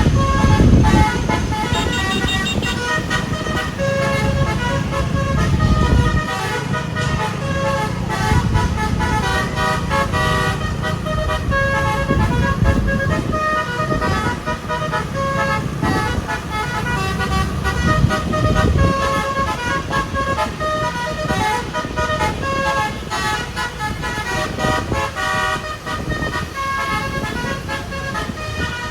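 Bus Basuri 'telolet' horn playing a tune as a quick run of stepped horn notes, over a low rumble and voices.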